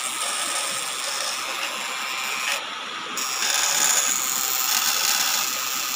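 Homemade battery-powered electrofishing shocker, built from transformer coils and capacitors, buzzing steadily as it runs. The high part of the buzz drops out briefly just before the middle, then comes back stronger.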